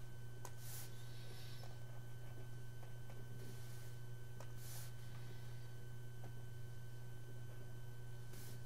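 Steady low electrical hum with a thin, faint high whine over it, and a few soft, brief hisses.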